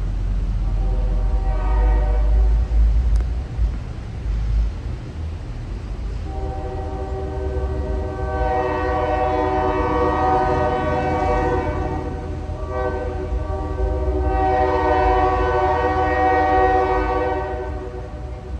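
Locomotive air horn sounding three long blasts, the first fainter and about three seconds long, the next two louder and about five to six seconds each, over the steady low rumble of the moving train.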